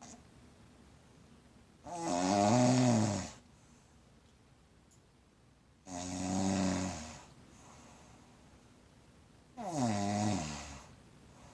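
Snoring while asleep: three long, pitched snores about four seconds apart.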